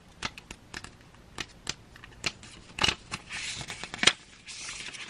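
A deck of tarot cards being handled: scattered light clicks and snaps of the card stock, with short stretches of cards sliding and rustling about three seconds in and again near the end.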